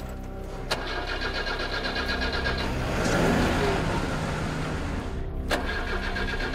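A car engine running, loudest in a swell from about three to five seconds in, over a steady sustained music drone.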